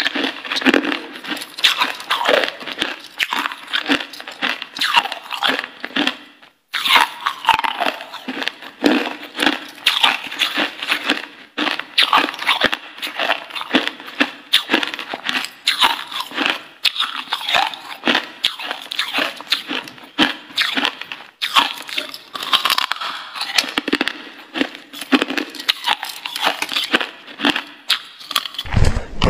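Close-up chewing and biting of a lump of frozen crushed ice: a dense, continuous run of crisp crunches and crackles as the ice breaks between the teeth, with one brief break about six seconds in.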